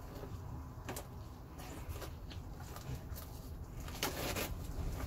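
Plastic shrink-wrap crinkling and rustling as it is peeled off a small cardboard box, with a louder stretch of crackling about four seconds in.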